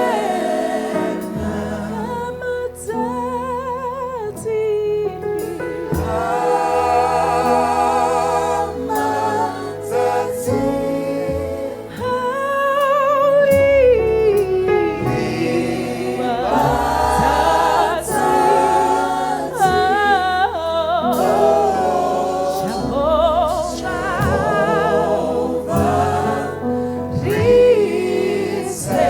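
Gospel worship music: voices singing a slow song with wide vibrato over steady low accompanying notes.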